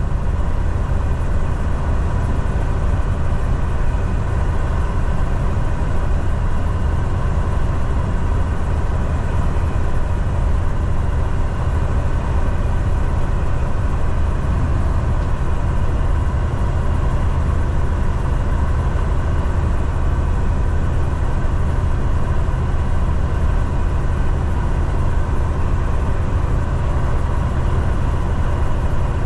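Semi-truck's diesel engine and tyre noise heard from inside the cab at a steady highway cruise: an even low drone that does not change in pitch.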